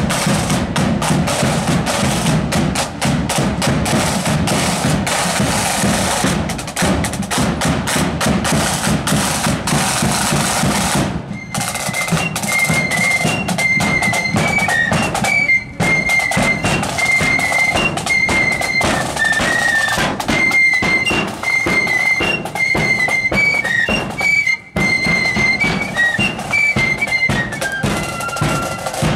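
Marching band of side drums and flutes playing. For about the first eleven seconds the drums play alone in a rapid rolling beat; then high flutes come in with a tune over the drums.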